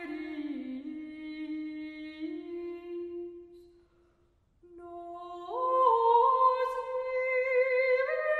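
Slow melodic music of long held notes that glide from one pitch to the next. It fades out a little before halfway, stops for about half a second, then starts again louder.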